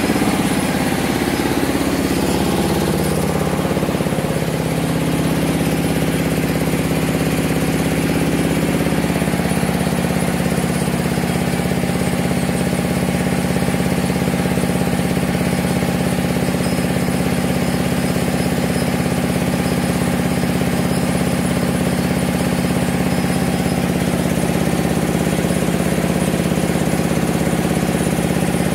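Diesel engine of a rice-milling machine running steadily under load. Its note shifts a little in the first several seconds, then holds steady.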